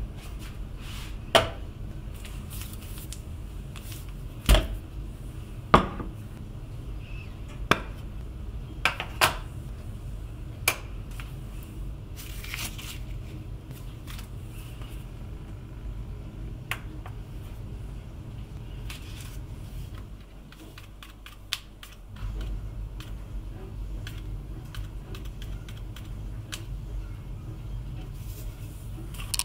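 Kitchen items (a scale, a ceramic mug, a glass bottle) set down and handled on a bamboo cutting board: a string of sharp knocks and clacks, thickest in the first ten seconds, then sparse clicks over a steady low hum.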